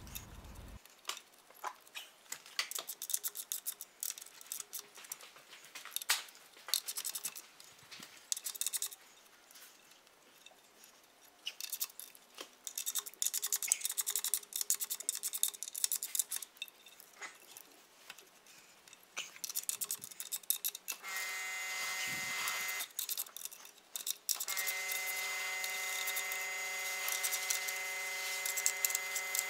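Hand ratchet clicking in short irregular runs as the camshaft bearing cap bolts on a BMW M52 cylinder head are drawn down a little at a time, so the new camshaft is not cracked. About two-thirds of the way in a steady humming tone starts, stops briefly and comes back.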